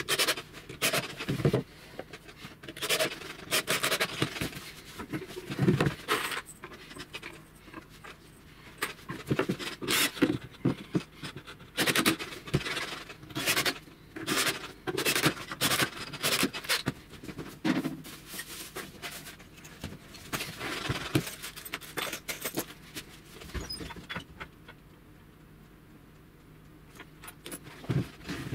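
Irregular clicks, knocks and scrapes as laminated plywood table panels and small metal fittings are handled and fitted together, with a quieter spell near the end.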